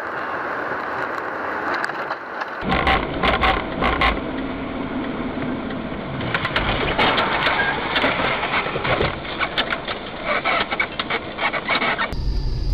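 Steady road and engine noise from a car. About two and a half seconds in, it switches to a long run of irregular crunching knocks and clatters lasting most of the rest.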